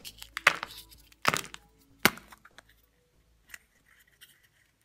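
Kinder Surprise chocolate egg shell cracking apart by hand, three sharp cracks in the first two seconds. Faint plastic clicks follow as the yellow toy capsule inside is pried open.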